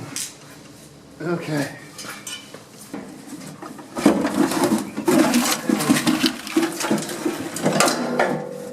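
Metal clinking and rattling: a few separate clicks, then from about four seconds in a dense, continuous clatter of small metal-on-metal knocks.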